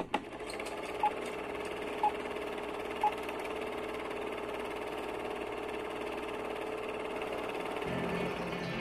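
Film-projector sound effect of an old-film countdown leader: a steady mechanical whirring rattle, with three short countdown beeps about a second apart in the first few seconds. Music comes in near the end.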